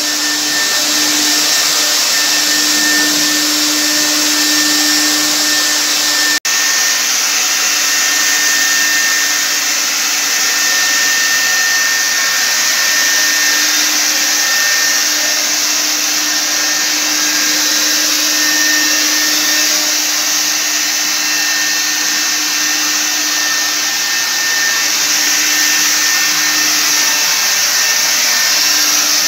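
Electric ULV cold fogger running steadily: the whine of its high-speed blower motor with a loud rush of air, broken for an instant about six seconds in.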